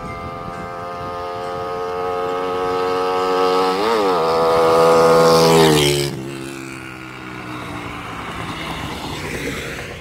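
Suzuki Raider R150 motorcycle with an Orion open pipe and its silencer insert fitted, accelerating toward and past the listener. The engine note climbs steadily and is loudest about five and a half seconds in, then drops in pitch as the bike passes and fades away.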